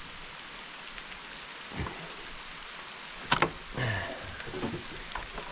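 Hydraulic hose quick coupler being pulled apart by hand: a sharp metal click about three seconds in, followed by a few lighter knocks. Light rain patters steadily throughout.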